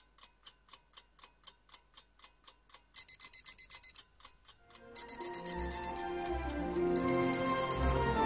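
Small quartz alarm clock ticking quickly, about four ticks a second. About three seconds in, its high electronic alarm beeps in rapid pulses, and keeps sounding in repeated bursts as music with a bass beat comes in under it.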